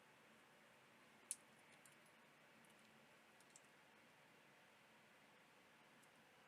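Near silence with one sharp click about a second in and a few faint ticks after it: small hard pieces being handled.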